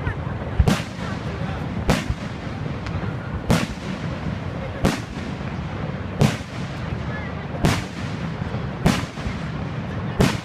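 Aerial fireworks shells bursting in a steady sequence, eight loud booms spaced about a second and a half apart, over a steady low background rumble.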